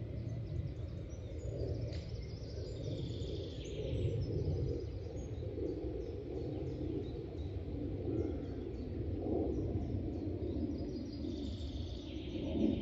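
Wild birds singing: scattered chirps, with two fuller song phrases, one about three seconds in and one near the end, over a steady low rumble.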